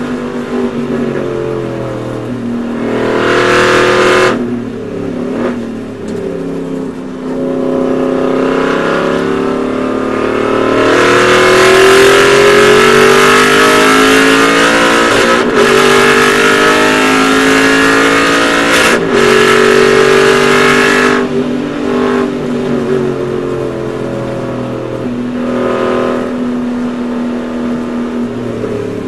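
Aston Martin Vantage GT4 V8 racing engine heard from inside the cockpit at speed, its pitch rising and falling as the car lifts and accelerates. About eleven seconds in it pulls at full throttle for some ten seconds, loudest here, broken twice by brief breaks that sound like quick upshifts, then it eases back to a lighter, steadier note.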